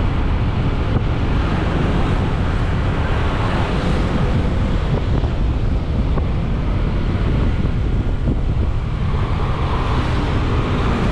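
Wind rushing and buffeting over the microphone of a camera on a moving motorcycle, with the motorcycle's engine and road noise steady beneath it.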